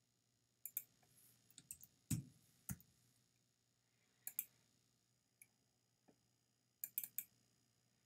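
Faint computer mouse clicks, a dozen or so, some in quick pairs and a cluster of three near the end, with two duller knocks about two seconds in.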